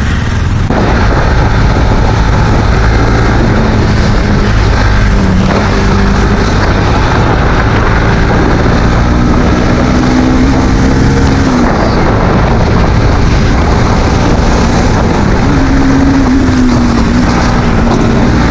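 Motorcycle ridden at road speed, wind rushing over the microphone with the engine note beneath it. The engine's pitch rises and falls with the throttle, climbing through the middle and dropping away about eleven seconds in.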